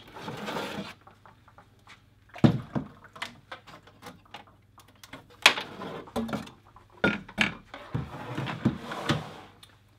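Plastic dispense bottles being lifted and slid out of an analyser's metal bay: scraping and rustling, with sharp knocks about two and a half and five and a half seconds in and a cluster of clicks near the end.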